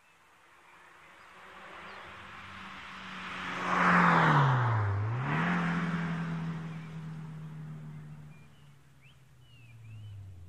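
Renault Clio Sport 172's four-cylinder engine through an EPS sport exhaust, driving past. The engine note swells to its loudest about four seconds in, dips in pitch and comes back up, then fades steadily as the car drives away. The owner finds this exhaust a little too loud.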